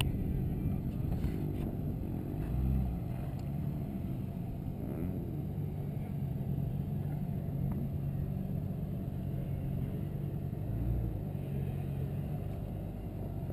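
Jeep Cherokee's engine running steadily at low revs while crawling over loose rocks.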